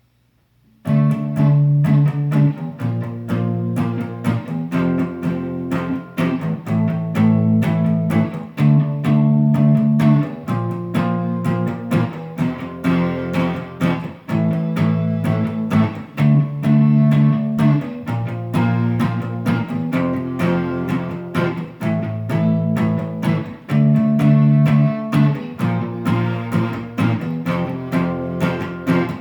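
Instrumental song intro: plucked guitar notes over a repeating bass line, starting about a second in.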